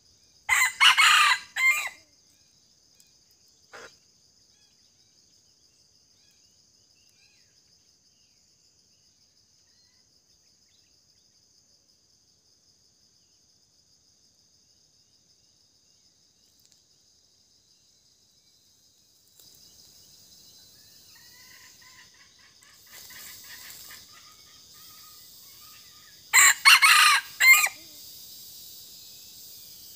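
A wild red junglefowl rooster crows twice, once near the start and again near the end, each a short broken crow of about a second and a half. A steady high insect drone runs in between, growing fuller toward the end.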